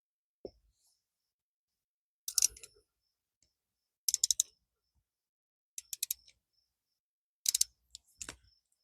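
Short bursts of sharp metal clicks from hand tools working on the RZR's old oil drain plug, about five clusters a second or two apart with silence between.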